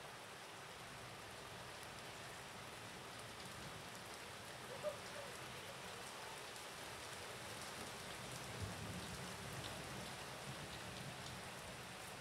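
Light rain falling: a faint steady hiss with scattered patter. There is one sharper tick about five seconds in, and a low rumble rises from about eight seconds in.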